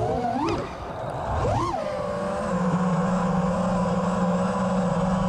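Brushless motors and props of a 5-inch FPV freestyle quadcopter whining. The pitch jumps up sharply twice with throttle punches in the first two seconds, dipping briefly between them, then holds a steady whine.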